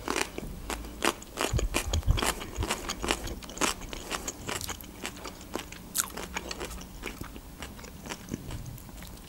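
Close-miked chewing of crisp raw cucumber: irregular crunches and wet clicks, heaviest about two seconds in, then softer chewing.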